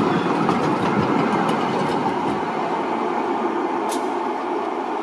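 Class 8 tram passing close by and pulling away along the track, its running noise slowly fading. A few light wheel clicks come in the first couple of seconds, and a brief high squeak comes about four seconds in.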